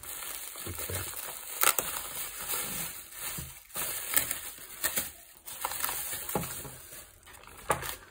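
Plastic bubble wrap rustling and crinkling as it is handled and pulled open, with a few sharp crackles.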